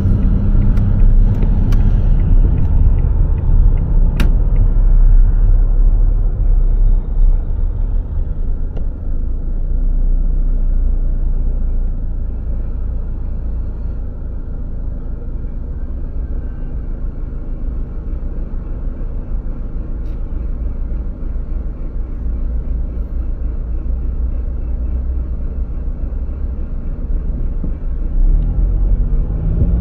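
Car engine and road rumble heard from inside the cabin. It is louder while the car moves through the intersection, then lower and steady as it slows and idles in a traffic queue.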